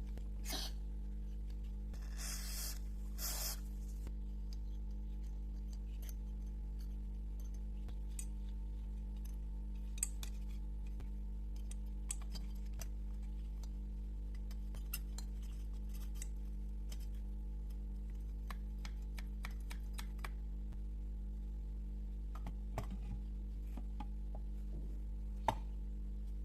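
Small metal parts and tools clicking and tapping now and then on a workbench over a steady low electrical hum, with two short hissing bursts about two and three and a half seconds in.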